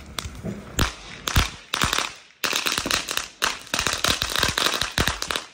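Firecrackers bursting: a few sharp bangs, then a fast, irregular run of many loud cracks.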